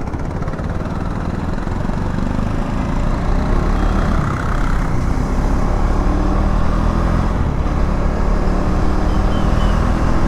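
KTM Duke 390's single-cylinder engine running on the move, its note bending up and down through the first half and then holding steady, over a constant rush of wind and road noise that grows slightly louder.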